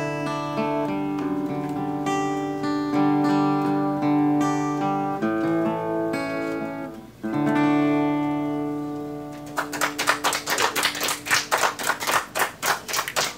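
Acoustic guitar chords strummed and left to ring out as the song closes. About nine and a half seconds in, clapping starts.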